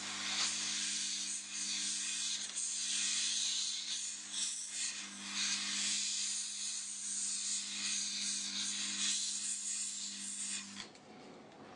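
Hot-air heat gun running: a steady rush of blown air over a low motor hum, aimed at the wiring on the binding posts. It switches off about a second before the end.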